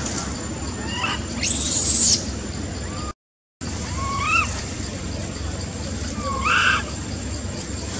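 Young macaque giving short squeaky cries that rise and fall in pitch, three of them, with a louder, harsher cry about a second and a half in. A steady low hum runs underneath, and the sound drops out for half a second a little past the middle.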